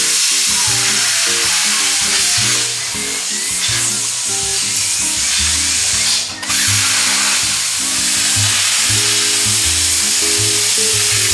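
Plasma cutter cutting sheet steel: a loud, steady hiss that breaks off briefly about six seconds in, then carries on. Background music with a bass line plays underneath.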